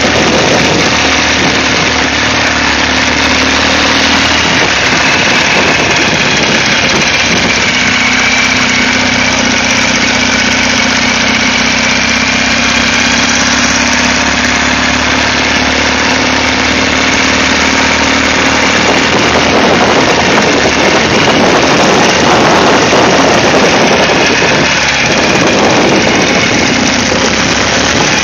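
Ural sidecar motorcycle's air-cooled flat-twin engine running steadily while riding slowly, its pitch dipping a little and rising again partway through.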